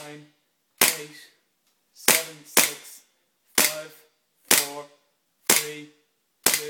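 Gas-powered blowback M1911 replica BB pistol dry-fired without BBs: seven loud, sharp shots at roughly one a second, two of them in quick succession about two seconds in, each followed by a brief metallic ring.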